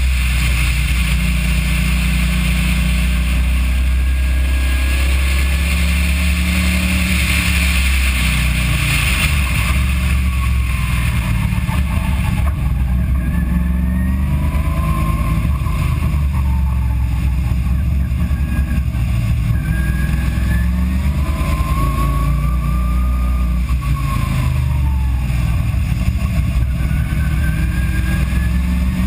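Race car engine heard from inside the cabin, running at falling revs as the car slows and shifts down a gear for slow corners. It is mostly a deep, steady drone, with a faint whine that rises and falls. A hiss of wind and road noise fades about twelve seconds in as the speed drops.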